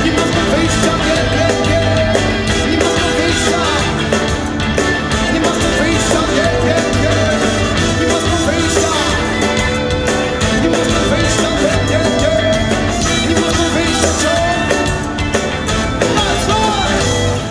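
Live reggae band playing, with a horn section of saxophone, trumpet and trombone over bass guitar, electric guitar, keyboards and drums.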